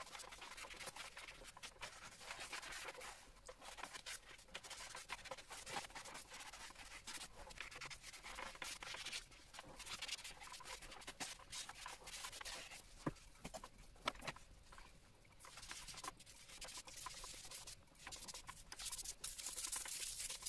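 Kitchen scouring pad scrubbing the wet slate case of an antique clock: an uneven run of scratchy rubbing strokes, with a couple of sharper clicks past the middle.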